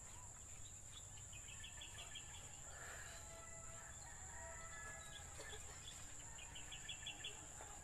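Faint rural yard ambience: distant chickens calling, and twice a short trill of rapid chirps, with a steady high-pitched whine underneath.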